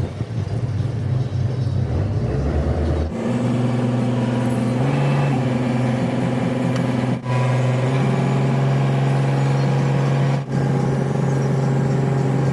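Boat engine running with a steady low drone. The drone shifts abruptly in pitch and tone about 3, 7 and 10 seconds in.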